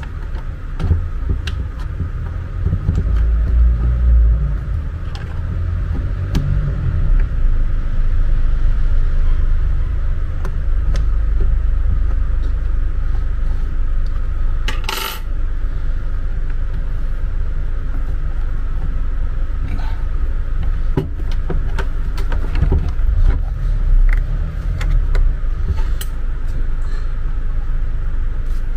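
A large black plastic housing being handled, shifted and turned over on a tabletop while it is taken apart: heavy low bumps and rubbing, with many small metallic clicks and clinks from loose screws and a screwdriver. One sharper, brighter clatter comes about halfway through.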